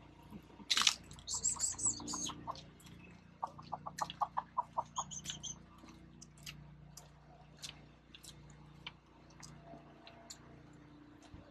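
Birds calling over a low steady hum: a sharp click just under a second in, then high chirps and two runs of quick, evenly spaced notes, about six a second.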